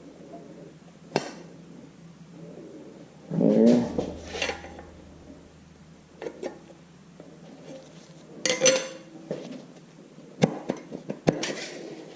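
Metal clinks, knocks and scrapes of a new cylinder sleeve being worked down into the oiled bore of a Farmall Super MTA engine block. There are a few separate sharp clinks with a ringing edge, loudest about four seconds in and again past the middle.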